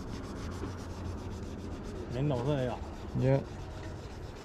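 Steady rubbing, scraping noise of a spinning reel being cranked during a retrieve, with two short vocal sounds from a man about two seconds in and again just after three.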